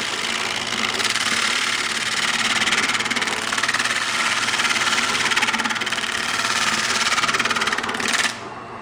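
Lathe motor running fast while a spindle gouge shaves rigid insulation foam spinning on it: a steady hiss of cutting over the motor's hum. The sound drops off sharply a little after eight seconds in.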